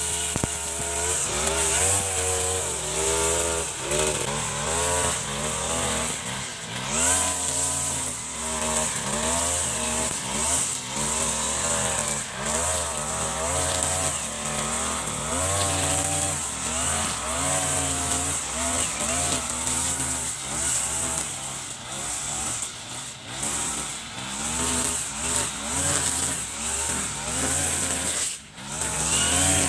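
Brush cutter's small petrol engine running hard while mowing grass, its pitch rising and falling as the throttle is worked through each swing, with a brief drop near the end.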